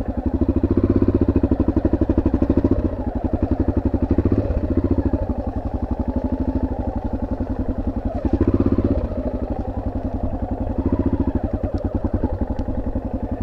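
Yamaha XT600's single-cylinder four-stroke engine running at low revs, with each firing stroke heard as a distinct, steady beat. The throttle is opened in short surges four times, making the engine louder each time.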